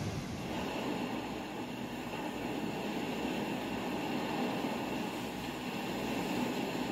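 Steady rushing outdoor background noise with a faint high-pitched hum running under it; no single event stands out.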